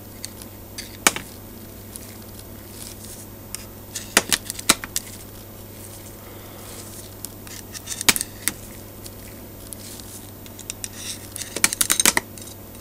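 Steel ball bearings being picked out of an Emotator 1200 rotator's greasy bearing race with a metal pick and dropping into a plastic tub: scattered sharp clicks and clinks, a few at a time, with a quick flurry of them near the end. A low steady hum runs underneath.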